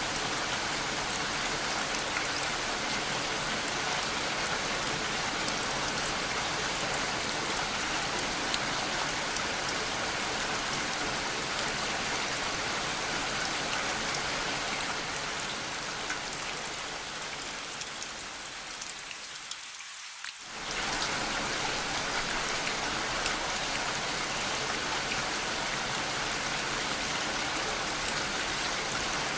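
Steady rain, with individual drops ticking over an even hiss. About two-thirds of the way through, the lower, fuller part of the sound thins out over a few seconds, then comes back suddenly.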